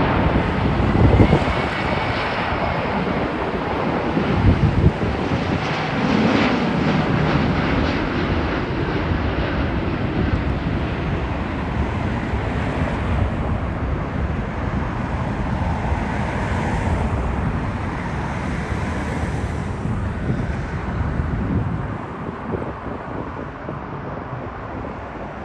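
Jet engine noise of a Qantas Airbus A380 as it lands: a steady rumble that grows quieter in the last few seconds.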